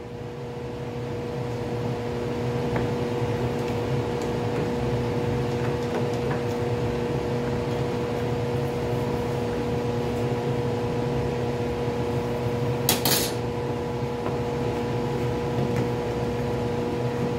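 A steady machine hum at a fixed pitch with overtones. A few light clicks run through it, and a brief metallic clatter comes about thirteen seconds in.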